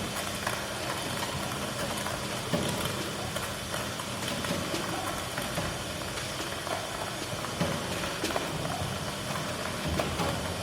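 Improvised experimental music from turntables and drums: a dense, steady noisy texture with scattered clicks and knocks.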